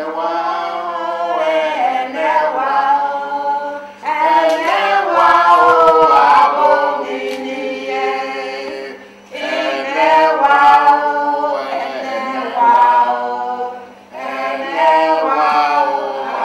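A man and a woman singing a song together without accompaniment into a microphone, in sung phrases of a few seconds each with short breaths between.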